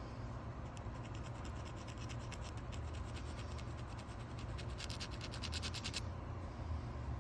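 A fast run of small scratching clicks starting about a second in, growing denser and then stopping abruptly about a second before the end, over a steady low hum.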